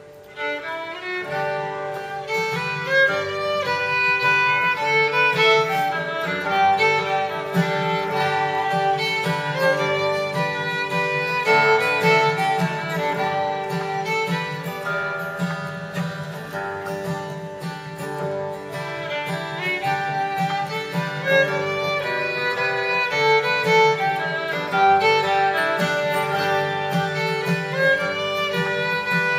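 Fiddle playing an old-time tune with acoustic guitar backing, the fiddle carrying the melody over the guitar's steady rhythm. The playing strikes up right at the start.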